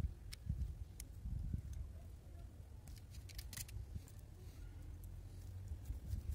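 Faint clicks and scraping of a small blade and fingers working the end of a coaxial cable, cutting the insulation and spreading the copper braid shield, with a brief cluster of sharper clicks about three and a half seconds in, over a faint low rumble.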